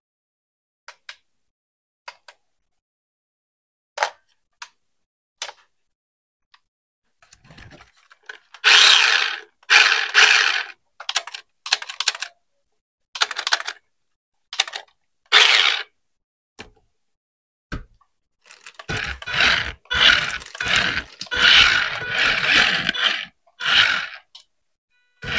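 Handling noise while unboxing a toy RC car: a few light clicks, then repeated bursts of rustling and scraping. The bursts are densest in the last few seconds.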